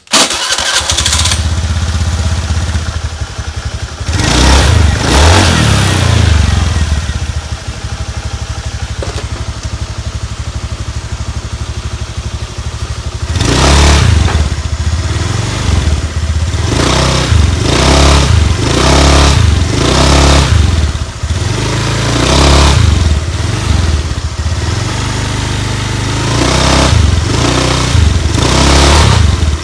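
Honda Beat FI automatic scooter engine idling and revved in short bursts, once about four seconds in and then over and over from about halfway, each rise and fall lasting about a second. The owner complains of a loud rattle when pulling away, which sounds like a worn bearing.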